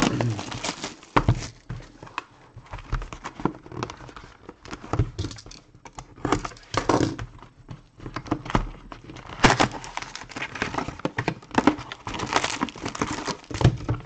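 Plastic wrapping crinkling and cardboard rustling and scraping as a sealed trading-card box is unwrapped and opened and its packs are handled, in many short irregular crackles.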